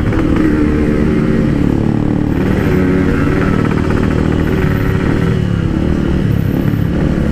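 Yamaha RX-King two-stroke motorcycle engine running while riding, heard through a quiet PK1-type silencer exhaust, its note wavering slightly with the throttle.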